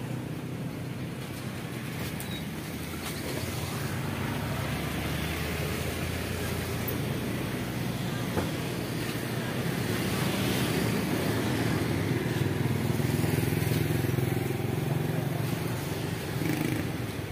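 Street traffic: motor vehicle engines, mostly motorbikes, running steadily, with one growing louder between about ten and fifteen seconds in and then easing off.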